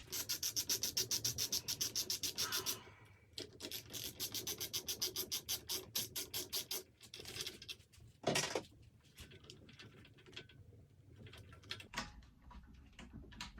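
Hand tool working on metal bike parts: two runs of quick, even rasping strokes, about seven a second, then one louder scrape a little after the middle, and a few faint scattered taps after it.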